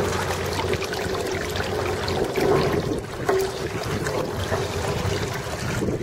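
Footsteps crunching over beach pebbles and gravel, with many small clicks of stones under a steady rush of noise.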